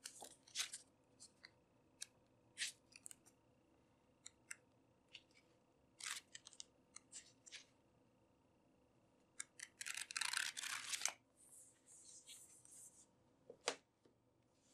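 Pages of a paperback project book being flicked through and handled: quiet, short crisp paper rustles and flicks, with a longer rustle about ten seconds in and a soft knock near the end as it is set down.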